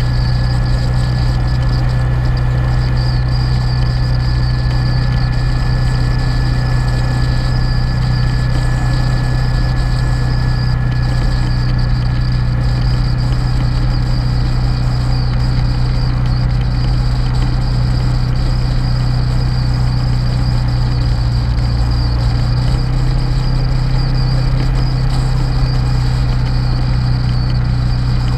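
Motorcycle engine running steadily at road cruising speed, a constant low drone with road noise. Its note shifts slightly a little past the twenty-second mark.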